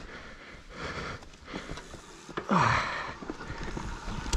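Mountain bike rolling down a rooty, stony dirt trail: tyre and rattle noise from the bike with the rider breathing hard, a loud voiced exhale about two and a half seconds in, and a few knocks from the bike over roots near the end.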